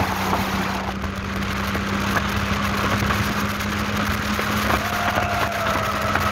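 Sea Ray motorboat running under way: a steady engine drone beneath a continuous rush of wind and water along the hull.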